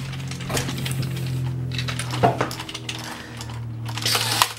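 Plastic clicking and clacking of a two-player Marvel Superhero Slam fighting toy as the Iron Man and Hulk figures are worked by hand and knock against each other, a string of sharp clicks over a low steady hum.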